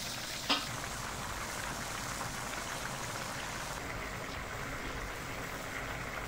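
Rice and fish stock of a seafood paella boiling in a steel paella pan over a gas burner, a steady crackling bubble while the rice cooks. A single sharp clink about half a second in.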